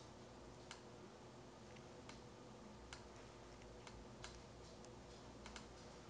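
Faint computer mouse clicks, about eight of them spaced irregularly, over a low steady room hiss, as the mouse is clicked and dragged to paint a selection.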